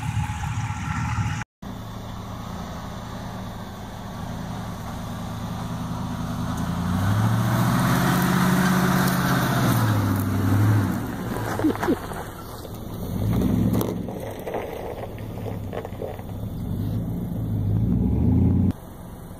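Chevrolet Z71 pickup truck driving off across grass, its engine revving up and easing back several times, loudest about eight seconds in. The sound breaks off abruptly shortly before the end.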